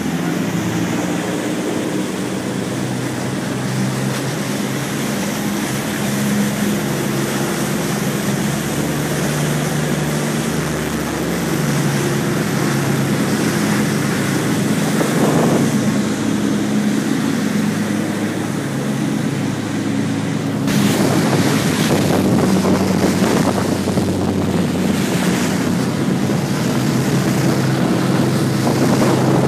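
Motorboat engines running with a steady hum, under wind buffeting the microphone and the rush of water. About twenty seconds in, the wind and water noise suddenly grows louder.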